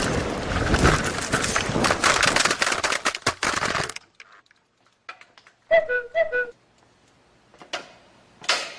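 Handling noise on a camera's microphone: loud rustling and crackling as the camera is moved about, which cuts off abruptly about four seconds in. About two seconds later comes a short run of four quick pitched notes.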